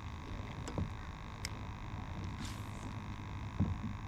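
Steady low hum and rumble, with a few faint clicks, a couple of soft knocks and a short hiss about two and a half seconds in.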